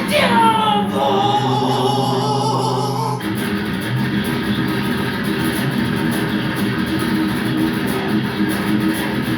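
A thrash/speed metal band playing, led by guitars. A falling pitch glide at the start gives way to a held chord, and about three seconds in the full band crashes back in and plays on at full pace.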